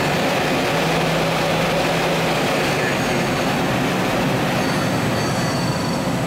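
Mazak Super Quick Turn 18M Mark II CNC lathe running with its spindle and chuck turning under power: a steady mechanical running noise, with a faint steady tone for a second or two near the start.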